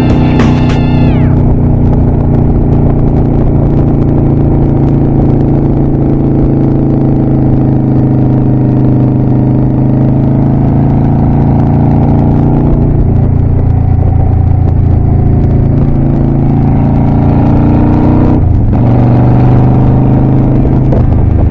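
2007 Honda Shadow VLX 600's V-twin engine running steadily at cruising speed. About eighteen seconds in, its note dips briefly and settles at a different pitch.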